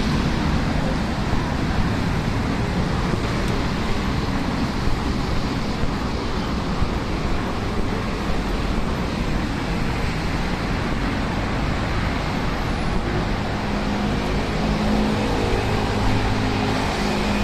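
Steady traffic noise from cars and buses passing on a wet multi-lane road, heard from the roadside; a heavier engine's low hum grows louder near the end.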